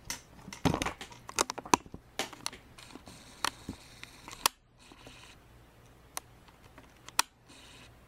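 Handling noise: a run of sharp clicks and crackly rustles, thickest in the first two seconds, then a few isolated clicks, over a faint steady low hum.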